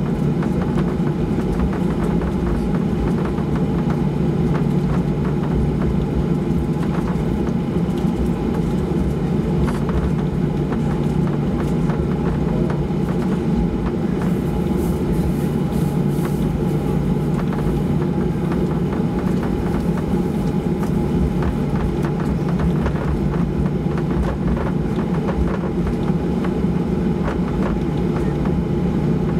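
Boeing 737-800's CFM56-7B turbofan engines heard from inside the cabin while taxiing: a steady, unbroken low drone and hum.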